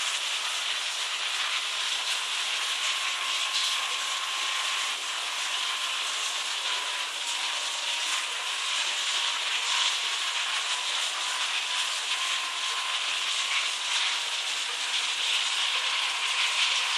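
Steady hiss with a faint thin whine running under it, and no distinct events.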